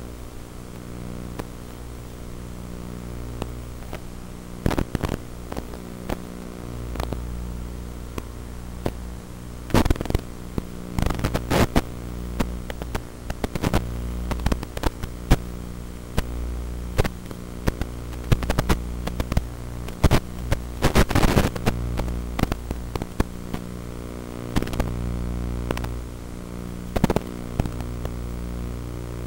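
Steady electrical buzz and hum at a fixed pitch, swelling and fading in level, broken by frequent crackles of static: the audio channel of an analog FPV video feed recorded on DVR during flight.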